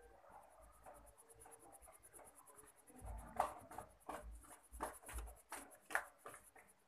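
Red coloured pencil scratching on paper as it shades in a small area with quick back-and-forth strokes, louder from about three seconds in.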